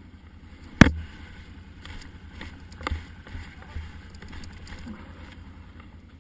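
Quad (ATV) running at idle with a low steady rumble. A loud sharp knock comes about a second in and a smaller one near three seconds, with a few faint knocks between.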